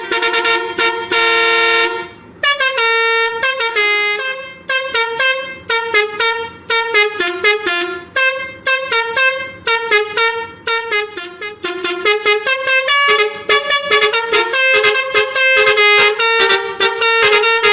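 Bus 'telolet basuri' multi-trumpet air horn playing a tune: one long held chord, a brief break about two seconds in, then a fast run of short notes.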